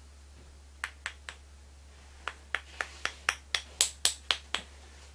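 Sharp taps of a paintbrush struck against a paint bottle opener to spatter thinned black paint: three taps about a second in, then a quicker run of about ten taps at roughly four a second, loudest near the end of the run.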